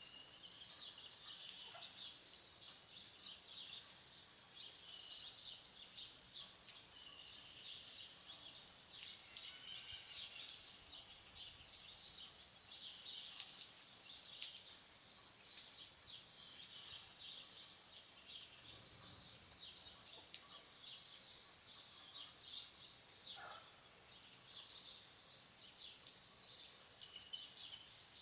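Faint rural ambience of light rain with birds chirping steadily throughout.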